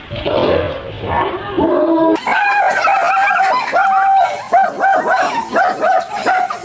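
A dog vocalizing in a run of short, pitched yowling and yipping notes, one after another. The sound changes abruptly about two seconds in, to a faster string of higher, evenly pitched notes.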